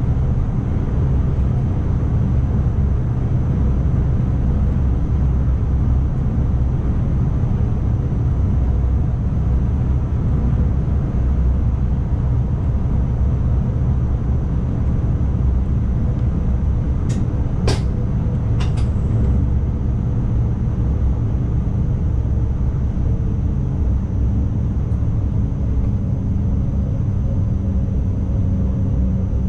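Cab noise of an ICMm electric intercity train running along the line: a steady low rumble, with a few sharp clicks about 17 to 19 seconds in.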